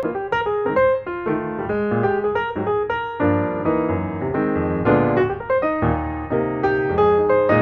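Background piano music: a light tune of quick notes and chords.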